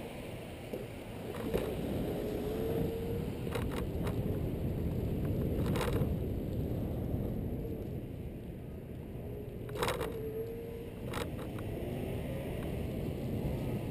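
Xiaomi M365 electric scooter riding on a wet road: steady tyre and wind noise, a faint whine that comes up briefly twice, and several sharp knocks as it runs over bumps.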